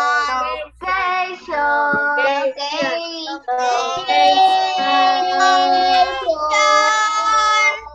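A child singing, with several long held notes.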